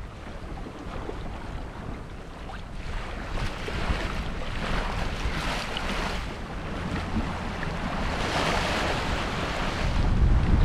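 Water rushing and splashing along the hull of a small sailboat under way, swelling and easing with the chop, with wind buffeting the microphone.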